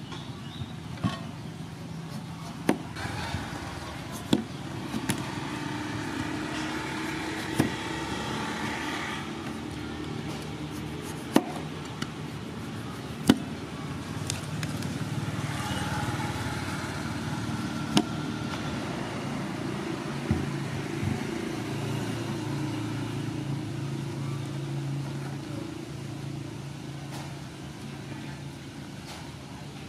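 A kitchen knife cutting the rind off a pumpkin, with sharp taps every second or few as the blade cuts through and knocks against the pumpkin and the woven bamboo tray, over a steady low hum.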